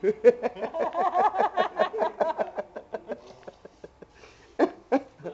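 Laughter in a quick run of pulsed bursts whose pitch climbs and then falls away over about three seconds, then two short sharp sounds near the end.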